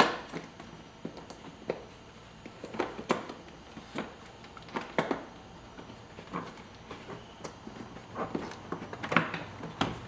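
Irregular clicks, light knocks and rustling of hands feeding a window-switch wiring plug and its cable through the inner panel of a Tesla Model 3 door. The sharpest knock comes right at the start, with a cluster of louder clicks about nine seconds in.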